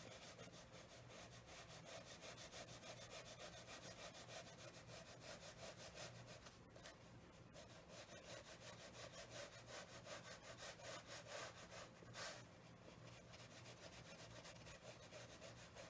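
Faint, repeated soft scratching of a flat brush stroking paint across watercolour paper, over a low steady hum.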